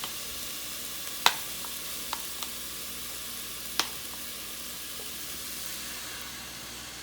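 Heavy cream sizzling in a pot of hot olive oil and garlic, a steady hiss that eases a little near the end. A few sharp clicks cut through it, the loudest about a second in and again near four seconds.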